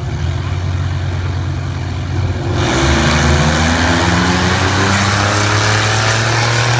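Drag-racing engines of a 440 Dodge truck and a Buick Riviera idling at the line, then launching at full throttle about two and a half seconds in. The engines rev hard, their pitch climbing in steps.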